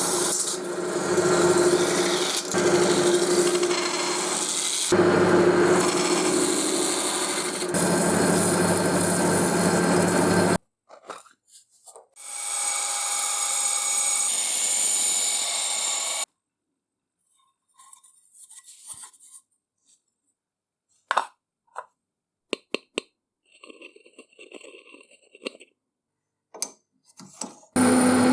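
A machine tool running and cutting for about ten seconds, then cut off abruptly; a few seconds of hiss follow, then scattered light clicks and taps.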